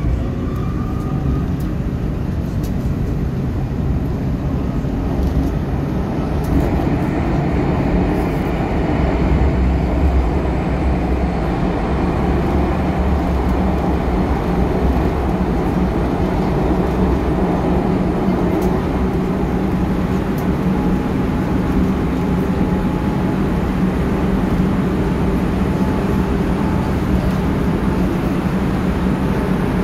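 Metro train running between stations, heard inside the passenger car: a steady rumble and rail noise, with the traction motors' whine rising in pitch at the start.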